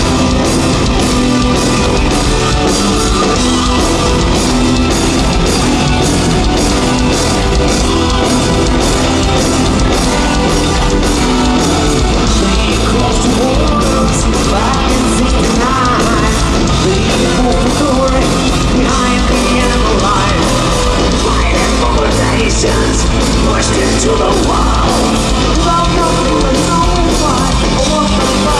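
Hard rock band playing live through a festival PA, heard from the crowd: distorted electric guitars and a steady drum beat, with a singer's voice coming in about halfway through.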